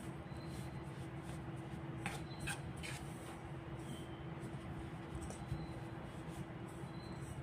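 Metal spoon stirring crumbly flour-and-margarine dough in a stainless steel bowl, soft scraping with a few light scrapes of the spoon on the bowl about two to three seconds in. A steady low hum runs underneath.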